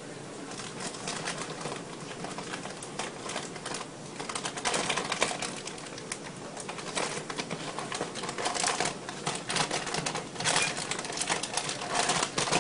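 A cat rummaging inside a kitchen wall cabinet: irregular rustling, scratching and light knocking, coming in louder bursts several times.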